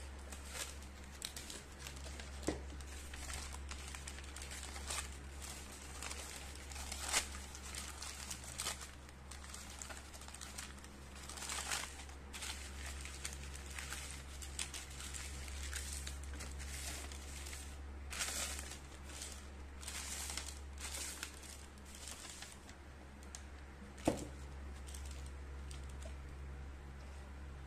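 Thin tissue wrapping paper rustling and crinkling in irregular bursts as it is handled and smoothed flat by hand. One sharp click near the end, over a low steady hum.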